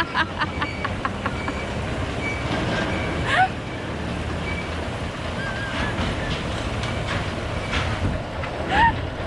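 Reverchon spinning roller coaster car running along its steel track, giving a steady rumble with clatter. Two brief rising cries stand out, about three seconds in and again near the end.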